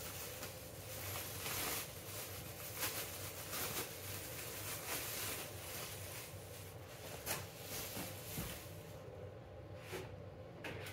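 Plastic bubble wrap rustling and crinkling as it is handled and pulled away, with scattered short crackles; it goes quieter near the end.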